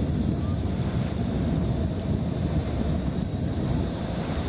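Wind rumbling on the microphone together with the rush of sea water, recorded from a boat under way at sea: a steady, low noise with no distinct events.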